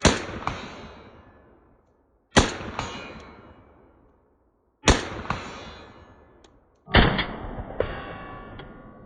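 Four shots from a Czechoslovak vz.52/57 semi-automatic rifle in 7.62x39mm, spaced about two to two and a half seconds apart. Each shot is followed about half a second later by a smaller sharp crack, and after the last shot there is a metallic ringing.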